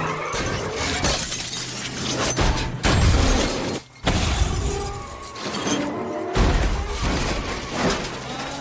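Film-trailer soundtrack: glass shattering and crashing sound effects over dramatic music, with a brief drop near the middle.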